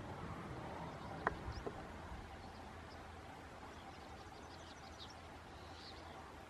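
Faint outdoor ambience with scattered short, high bird chirps, and two sharp clicks a little over a second in.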